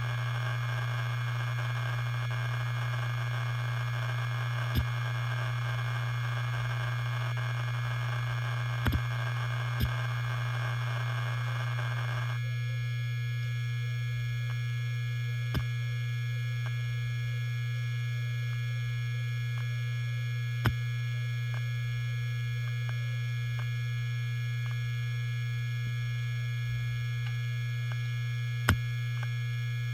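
Helium-filled hard disk drive spinning with a steady low hum, with about six sharp clicks at irregular intervals as its heads move. A background hiss drops away about twelve seconds in.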